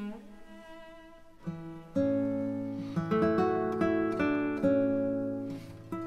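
Background music on plucked acoustic guitar. It is soft for the first second and a half, then notes and chords are struck at an unhurried pace.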